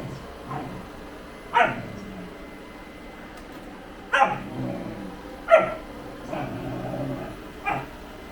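A dog barking: four sharp barks spread a second or two apart, the third the loudest, with a few fainter barks or yips between them.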